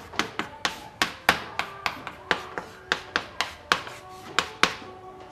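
Sharp irregular tapping, about three taps a second, thinning out near the end, over faint held musical tones.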